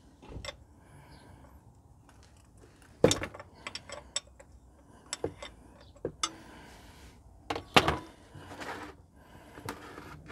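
Ring spanner clicking and knocking against the engine-oil drain plug under a car's sump as the plug is cracked loose and turned out: a handful of sharp metallic clicks, the loudest about three seconds in and again near eight seconds.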